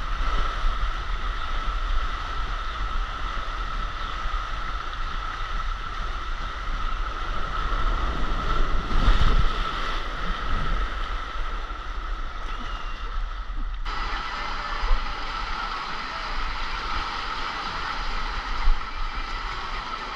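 Steady rush of water along a water slide during a ride, with a heavy low rumble on the microphone. The sound changes abruptly about fourteen seconds in, and there are two short knocks later on.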